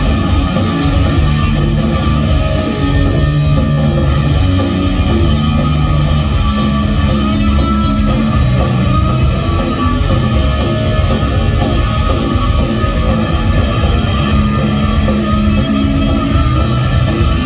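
Live punk rock band playing loud and steady, with distorted electric guitars, bass and drums, as recorded from the audience.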